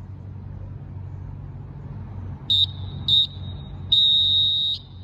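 Handheld electronic whistle sounding three steady high beeps in the second half: two short ones, then a longer one of nearly a second. A steady low hum runs underneath.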